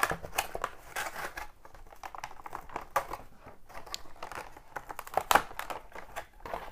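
A clear plastic blister pack being pulled and pried off its cardboard backing card by hand: irregular crinkling and crackling of the thin plastic, with a louder crack about five seconds in.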